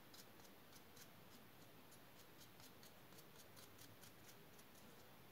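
Faint, quick, irregular scratchy ticks of a stiff, nearly dry brush's bristles flicking across a textured resin diorama base while dry-brushing white paint onto it.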